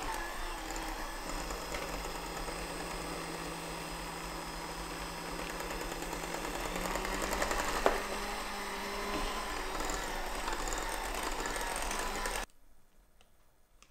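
Electric hand mixer running steadily, its beaters working a thick cooked flour dough in a glass bowl as eggs are beaten in one at a time. A single sharp knock comes about eight seconds in, and the mixer stops suddenly near the end.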